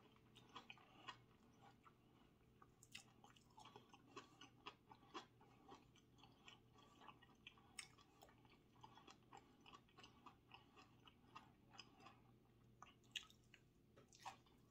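Faint close-miked chewing: irregular soft mouth clicks and small crunches as food is eaten.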